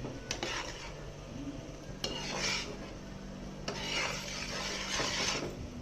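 A spoon stirring and scraping a boiling milk-and-palkova mixture around a pan, in three stretches of strokes, the longest near the end.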